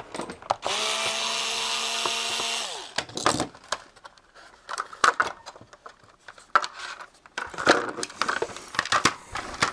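Cordless electric screwdriver running for about two seconds at a steady pitch, then slowing as it stops, backing out a screw from the case of a SpacePilot 3D mouse. It is followed by a series of sharp plastic clicks and knocks as the case is pried apart and handled.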